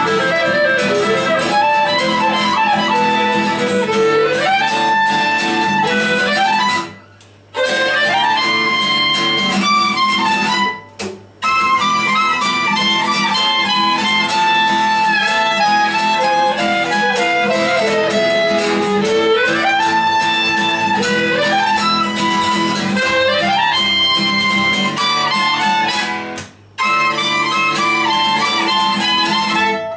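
Live trio of violin, clarinet and acoustic guitar playing an instrumental folk-style tune together. The sound cuts out briefly three times, about 7, 11 and 26 seconds in.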